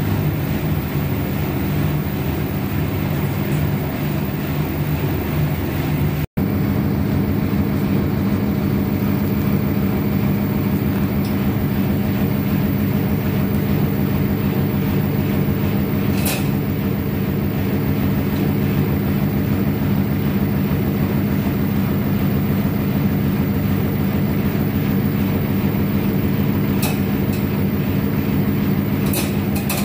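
A steady low mechanical hum, like a fan or motor running close by, with a momentary break about six seconds in and a few faint short clicks later on.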